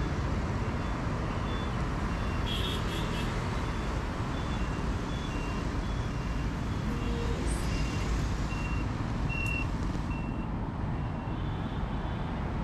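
A truck's reversing alarm beeping about once a second over the steady low rumble of an engine and road traffic, with a brief hiss now and then.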